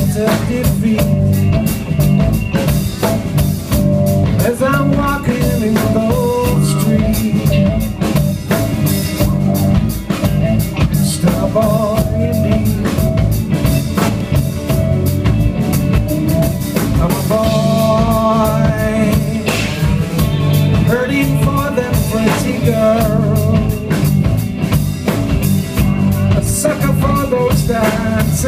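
Live rock band playing: a male singer over electric guitars, keyboard, bass and a drum kit keeping a steady beat.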